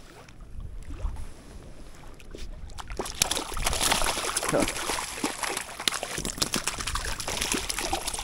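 Water splashing and sloshing close by, starting about three seconds in and going on busily with many small crackling splashes: a hooked rainbow trout thrashing at the surface as it is brought in to the bank.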